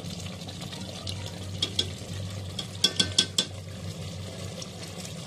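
A metal spoon stirring chicken pieces in yogurt gravy in an aluminium pot while the korma fries, with a few sharp clicks of the spoon against the pot about three seconds in. A steady low hum runs underneath.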